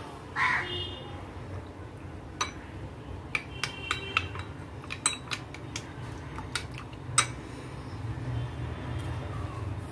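Metal spoon stirring cornflour and water in a small bowl: a string of light clinks and taps against the bowl, some of them ringing briefly, from about two seconds in until about seven seconds in, over a steady low hum. A short rasping noise comes just after the start.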